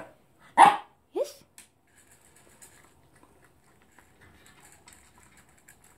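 A poodle eating dry kibble from a plastic slow-feeder bowl: faint, irregular crunching and small clicks of kibble against the bowl. A short loud voice sounds near the start, followed by a brief rising call.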